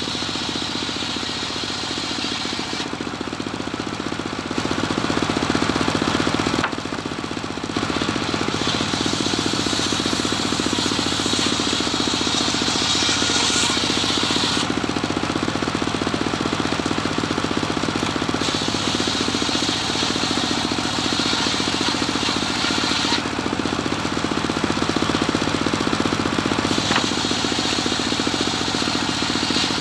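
Homemade engine-driven circular-saw sawmill ripping cempaka timber: the engine runs steadily throughout while the blade cuts through the wood in four passes of several seconds each, with short pauses between.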